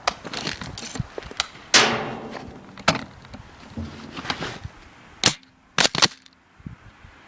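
Airsoft guns firing: a string of sharp snapping shots at irregular intervals, the loudest about two seconds in and two in quick succession near the end.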